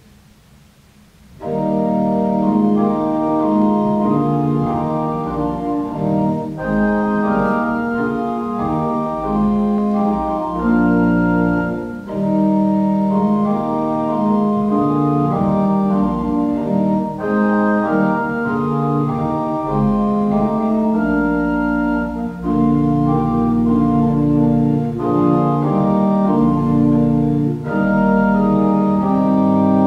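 Pipe organ playing a piece in full held chords, starting about a second and a half in.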